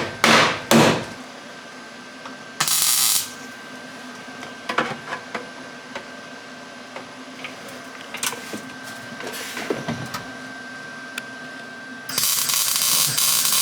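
Scattered tool clicks and knocks, with a short hiss about three seconds in; about twelve seconds in, a MIG welder starts a steady crackling buzz on the car's floor panel.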